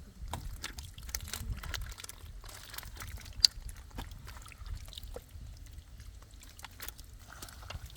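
Muddy water sloshing and splashing with scattered small clicks, and one sharp snap about three and a half seconds in.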